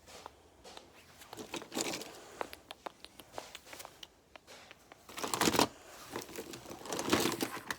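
Rustling and handling noises with scattered small clicks, with two louder rustling bursts about five and seven seconds in.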